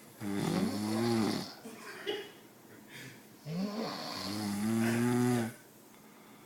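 A woman snoring: two long, pitched snores that start about three seconds apart, the second one longer.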